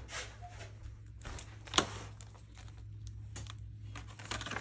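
Hands handling a cash budget binder: light clicks and plastic rustles as pages and clear zipper cash envelopes are turned. There is one sharp click about two seconds in, over a steady low hum.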